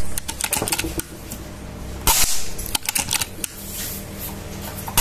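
A suppressed PCP air rifle, the Flash Point X, fires one shot about two seconds in. It is followed by a run of sharp clicks and ticks as pellets strike the metal silhouette targets, with more of these clicks early on from the previous shot.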